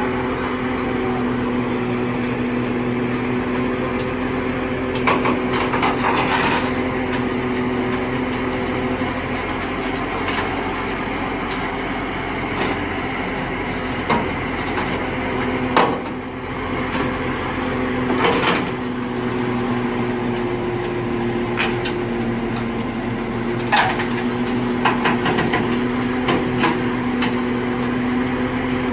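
A motor running steadily with a low hum, with scattered knocks and clanks a few times, most in two clusters about a quarter of the way in and near the end.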